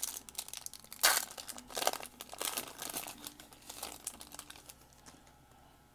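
A 2021 Bowman baseball card pack's foil-and-paper wrapper being torn open and crinkled by hand, with the loudest rip about a second in. The rustling thins out and fades near the end.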